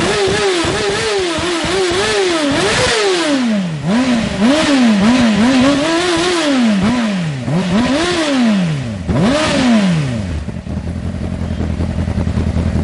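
Sport motorcycle engine revved over and over through its underseat exhaust. The note climbs and falls in quick throttle blips, short ones at first and then longer swoops. It settles to a steady idle about ten seconds in.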